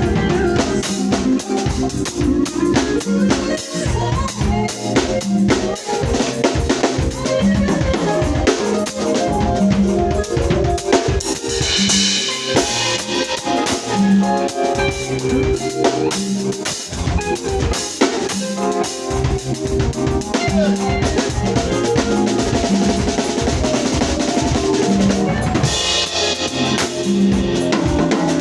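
A band playing through a song during a sound check: a drum kit with kick, snare and rimshots drives a steady beat over bass and other pitched instruments. A brighter cymbal-like wash comes in about twelve seconds in and again near the end.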